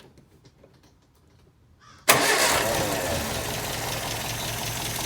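1952 MG TD's 1250 cc XPAG four-cylinder engine on twin SU carburettors catching suddenly about two seconds in, then running steadily, not yet tuned.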